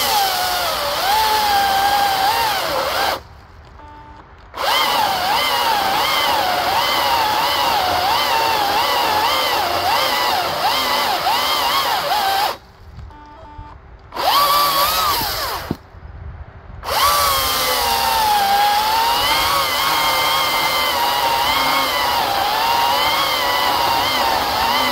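Greenworks 82CS34 82-volt cordless electric chainsaw fitted with an aggressive LGX PowerCut chain, cutting through a big log; its motor whine wavers and dips as the chain loads up in the wood. It stops briefly about three seconds in, and again for about four seconds near the middle, with a short burst of running in that pause.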